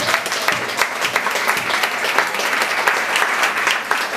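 A crowd of people applauding, many hands clapping steadily and densely throughout.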